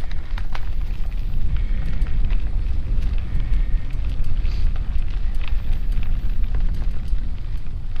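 Wind rumbling over the microphone of a camera on a mountain bike riding a dirt trail, steady throughout, with scattered sharp clicks and rattles from the bike and tyres going over the ground.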